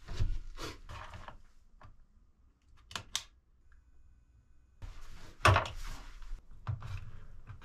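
Scattered clicks, knocks and rustling from hands handling electrical cables and plastic connectors around a small solar charge controller, with a sharp pair of clicks about 3 seconds in and a busier run of knocks from about 5 seconds.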